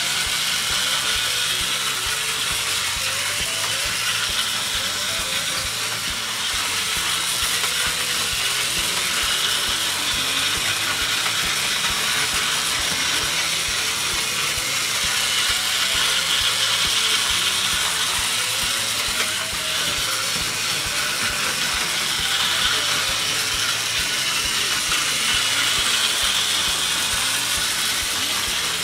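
Two battery-powered Plarail toy trains, an E657 series and a KiHa 261 series set, running together at their normal (slower) speed on plastic track. Their small geared motors give a steady whirring hiss that swells and fades as the trains come round.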